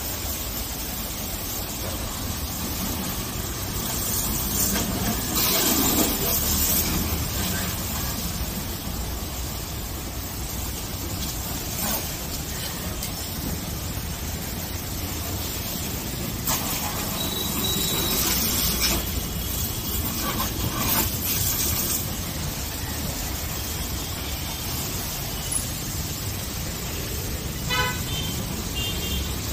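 High-pressure washer jet spraying water over a car's body, with the washer pump's steady hum underneath; the hiss swells as the jet hits the panels up close. A short horn toot sounds near the end.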